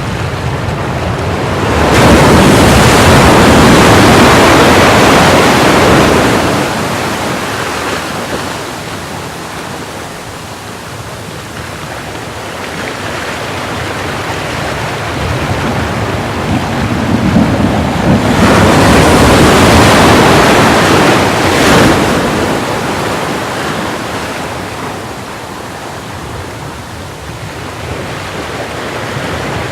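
Ocean waves breaking on the shore: two large breakers crash, one about two seconds in and another around eighteen seconds in, each washing out slowly, with steady surf noise between them.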